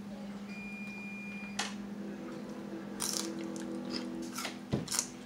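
Close-up eating sounds of crab: meat sucked and slurped from the shells, with scattered clicks of shell and a thump about half a second before the end, over a steady low hum.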